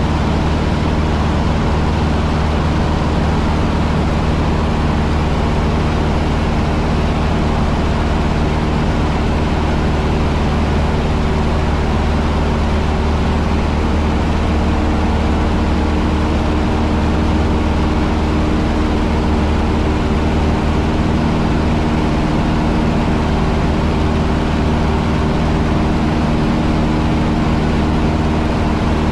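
Cessna 150's four-cylinder Continental O-200 piston engine and propeller running steadily, heard from inside the cockpit.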